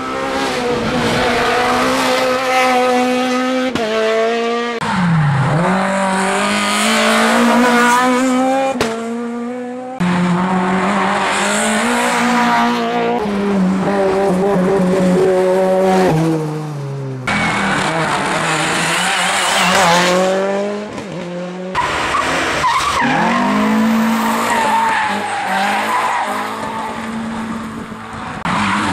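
Hill-climb competition cars driven flat out, engines revving high, their pitch dropping at each gear change as they pass through hairpins. Four cars, one after another, in short cuts.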